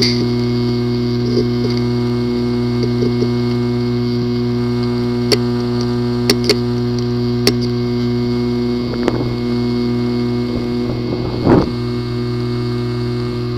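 Failing hard drive with a physically damaged disk assembly: a steady hum with a handful of scattered sharp clicks, and two louder, longer noises in the second half.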